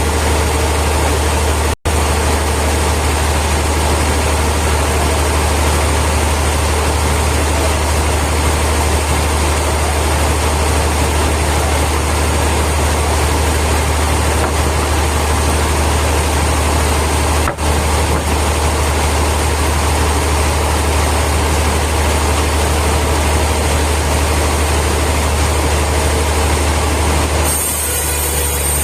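Heavy sawmill machinery running steadily: a loud, constant low engine hum with a hiss over it. The sound briefly drops out twice and changes character near the end.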